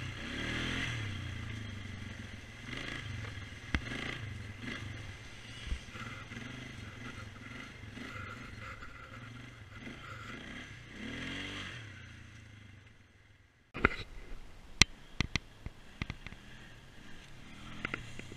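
2004 Polaris Sportsman 500 H.O. ATV's single-cylinder engine running, its revs rising and falling again and again. About 13 seconds in the engine sound fades away, then comes a string of sharp clicks and knocks before engine sound returns near the end.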